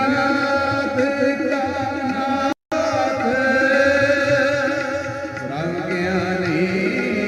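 Sikh kirtan: sung lines with wavering, drawn-out notes over two harmoniums, with tabla. The sound cuts out completely for a split second about two and a half seconds in.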